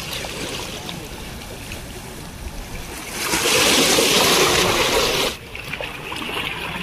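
Sea waves washing and splashing against the rocks of a boulder seawall, a steady rush that swells into a louder surge about three seconds in and drops off sharply about two seconds later.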